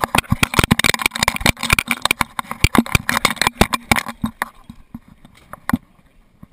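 A GoPro HERO2 strapped to a moving dog, rattling and knocking rapidly and irregularly as its mount jostles. After about four and a half seconds it thins out to a few scattered knocks.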